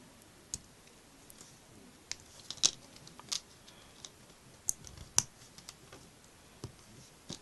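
Small Lego plastic pieces being handled and pressed together by hand: scattered sharp clicks at irregular intervals, the loudest a little under three seconds in and just after five seconds in.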